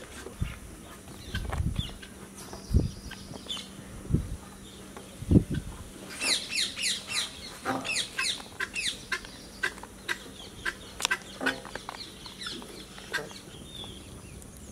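A bird calling in a rapid run of short, falling chirps for several seconds, starting about six seconds in. Before it come a few dull low thumps.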